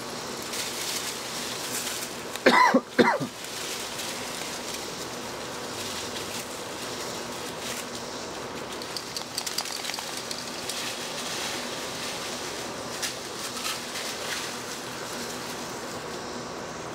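Puppies playing among dry leaves and piles of cut branches, with faint rustling and scattered light clicks. About two and a half seconds in comes a short burst of three loud vocal sounds.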